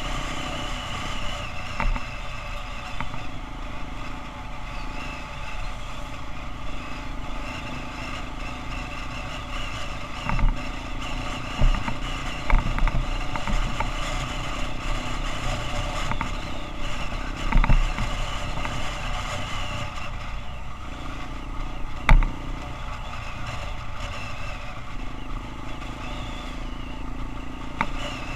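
Motorcycle engine running while riding, with steady road and wind noise and the engine note shifting now and then. A handful of sharp knocks cut through, the loudest about 22 seconds in.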